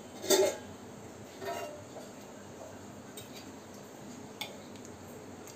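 Kitchen utensils clinking: one clink near the start, a smaller one about a second later, then a couple of faint taps, over a low steady hiss.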